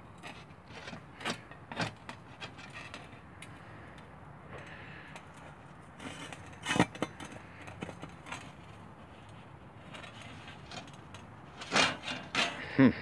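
Scattered metallic knocks and scrapes of a rusted, perforated metal pipe stack being wiggled in the hole of a metal bucket stove's lid to work it loose. The sharpest knock comes about seven seconds in, and several more come close together near the end.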